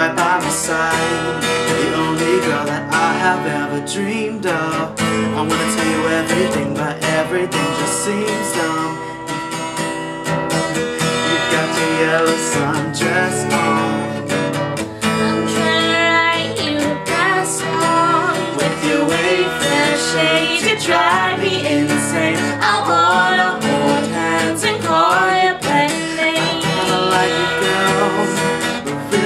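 Acoustic guitar strummed and picked while a man sings over it.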